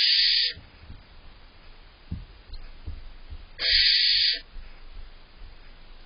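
Barn owl owlets giving their harsh, hissing begging screech twice: one short burst at the start and another about three and a half seconds in. Faint low knocks come in between.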